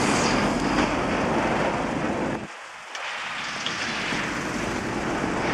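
Steady wind noise buffeting the microphone over street noise, cutting out briefly a little past halfway through.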